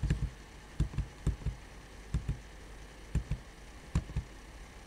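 Computer keyboard keys being pressed: short, dull knocks, mostly in pairs, about once a second.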